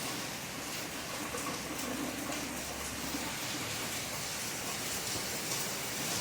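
Steady rainfall: a continuous, even hiss of rain.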